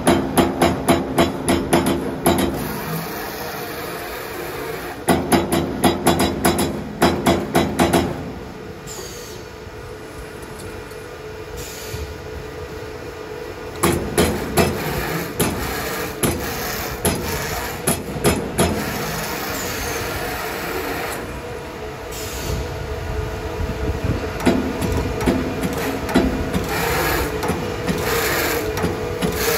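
CNC electric servo turret punch press punching sheet steel: rapid runs of sharp metal strikes, about five a second, broken by quieter stretches where only a steady hum is left, then slower, irregular strikes in the second half.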